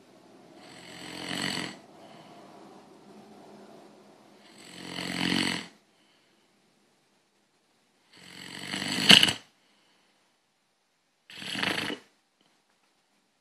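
Snoring: four loud snores about three to four seconds apart, each swelling up and then stopping abruptly, the third the loudest.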